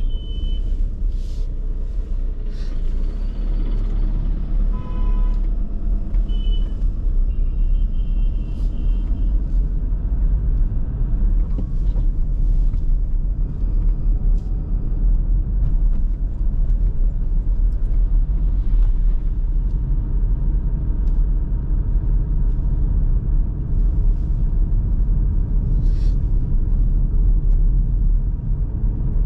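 Car driving along a road: a steady low rumble of engine and tyres, with a few brief faint high tones in the first ten seconds.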